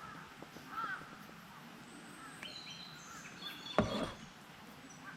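Birds calling, with a crow cawing about a second in and thinner high whistled calls after it, and one sharp knock just before the four-second mark.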